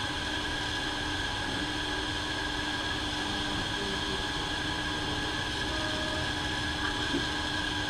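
Small 3D printers running: a steady whirring hum with several held tones, and short tones that shift in pitch now and then.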